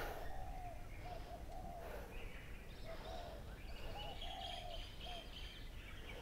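Birds calling: a string of short, low, arched notes repeating throughout, joined by higher chirping in the middle, over a steady low background noise.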